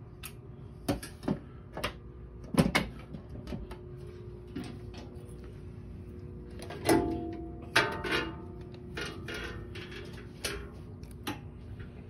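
Clicks and knocks from hands handling the metal cabinet door and hardware of a fire alarm control panel: about a dozen short, sharp knocks spread through, the loudest about two and a half seconds in and again around seven seconds in.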